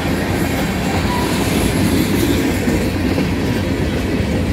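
Covered hopper cars of a long freight train rolling past: a steady, loud noise of steel wheels running on the rails.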